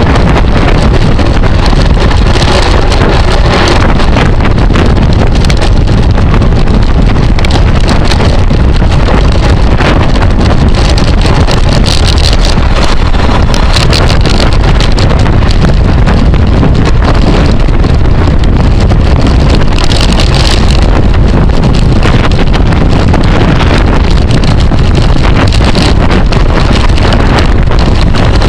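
Loud, steady wind rush on the microphone of a camera riding on a racing bicycle at speed, drowning out other sounds.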